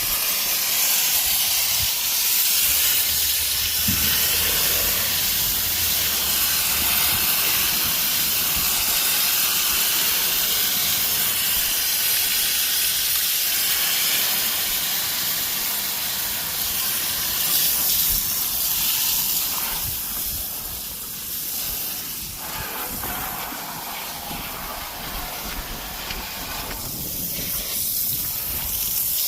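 Pressure washer spraying: a steady hiss of the water jet. It eases off for several seconds in the later part, then comes back stronger near the end.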